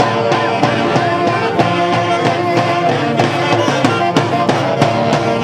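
Live music from a Huancayo orquesta típica: held melody notes over a steady drum beat.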